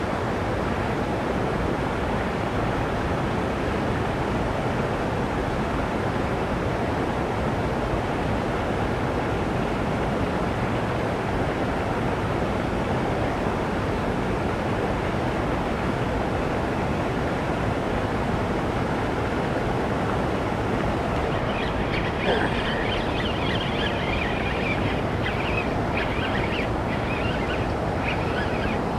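Steady rushing noise, with faint, irregular high chattering sounds joining about 22 seconds in.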